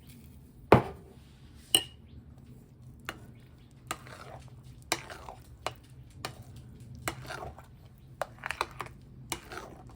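A utensil knocking and clinking against a pot as mashed potatoes are stirred, with irregular taps and short scrapes. There is a sharp knock about a second in and a clink that rings briefly just before two seconds.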